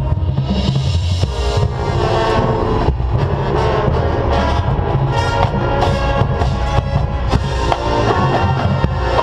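Marching band playing a loud, full passage, with drums keeping a steady beat under the winds.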